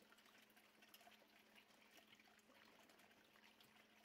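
Near silence: faint room hiss with a few tiny ticks.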